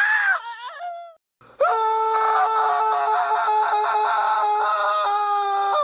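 Two cartoon character screams: a short wavering, falling cry, then about a second and a half in a long scream held at a steady pitch for over four seconds.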